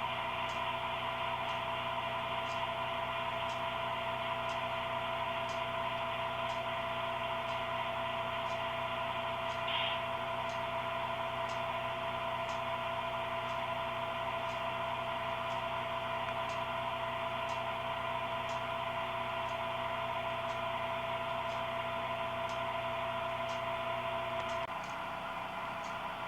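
HO-scale model train running, giving a steady hum of several held tones with light, regular ticks about one and a half times a second. Near the end part of the hum drops out and it gets slightly quieter.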